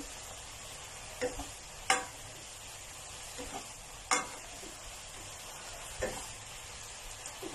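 Diced chicken breast sizzling and bubbling in a little water in a pan, cooked without oil. A spatula scrapes and knocks against the pan four times as the pieces are stirred.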